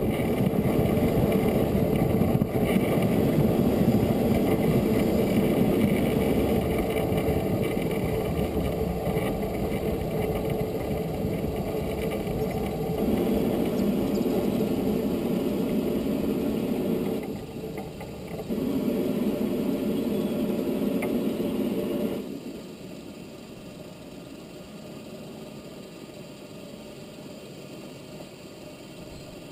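Cab noise of the narrow-gauge steam tank locomotive Loch as the train slows into a station: a steady rumble and rattle that dips briefly about 17 seconds in, then falls away about 22 seconds in to a much quieter steady background as the engine comes to a stand.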